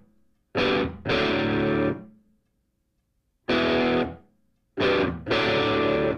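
Background music: distorted electric guitar chords in short stabs, each broken off by a moment of complete silence.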